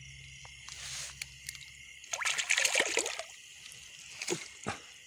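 A hooked catfish thrashing at the water's surface as it is pulled in on a set line: a burst of splashing and sloshing about two seconds in, then two shorter splashes.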